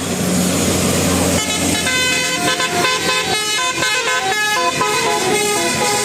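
Bus 'telolet' multi-tone horn of the Basuri type playing a quick tune of short stepped notes, starting about a second and a half in, over a low engine rumble.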